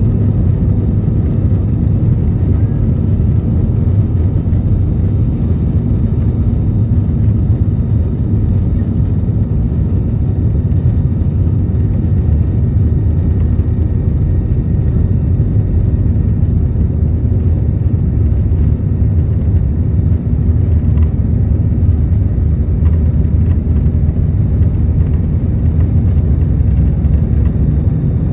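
Cabin noise of an Airbus A320 moving along the runway: a steady low rumble from its jet engines and the airframe, heard from inside the cabin by the wing.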